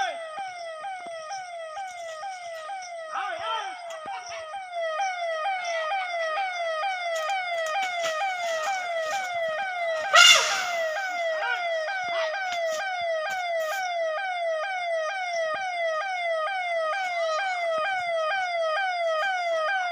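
Electronic siren repeating a short falling wail about two or three times a second, steady and unbroken. About ten seconds in, a single loud brief blast stands out over it.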